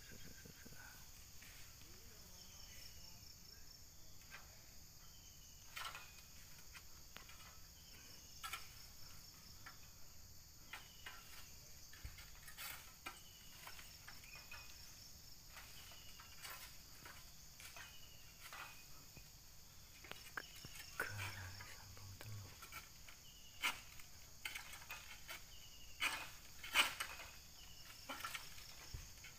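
Insects droning steadily with a fast pulsing beat, with short high chirps and scattered sharp clicks and knocks that grow louder and more frequent near the end.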